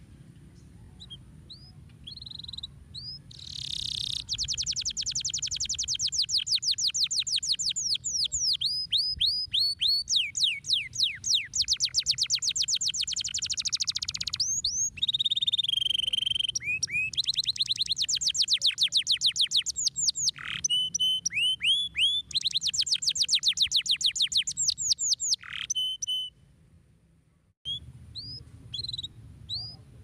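Domestic canary singing: long, fast rolling trills of rapidly repeated downward-sweeping notes, broken by short pauses and separate chirps. The song stops briefly shortly before the end, then starts again with scattered chirps.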